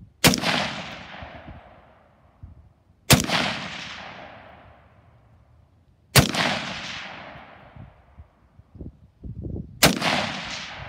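AR-15 rifle firing four aimed single shots about three seconds apart, each crack followed by a long echo that fades over a second or two. A few weaker low thumps come between the third and fourth shots.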